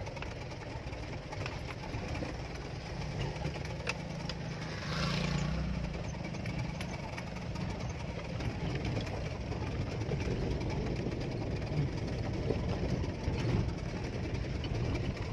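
Car engine running and road noise heard from inside the cabin while driving over a rough gravel road, with scattered small rattles and knocks. About five seconds in it briefly gets louder and brighter.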